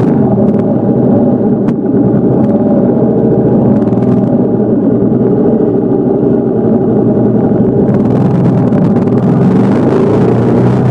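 Motorcycle engine running steadily under way, its note holding an even pitch. A rushing hiss of wind and road noise joins about eight seconds in.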